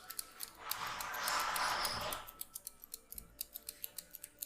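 Rapid, even metallic clicking, about six clicks a second, with a louder rushing noise from about a second in that lasts about a second and a half.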